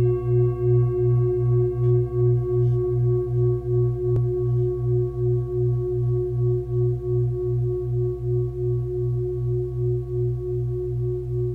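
A single sustained ringing tone with higher overtones above it, pulsing steadily in loudness about three times a second.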